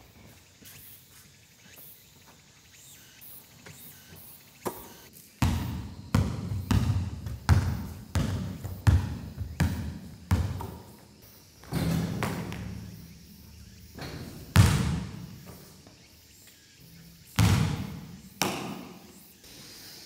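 Echoing thuds on a gymnasium's wooden floor, roughly two a second, starting about five seconds in, then a pause and a few louder single thuds later on.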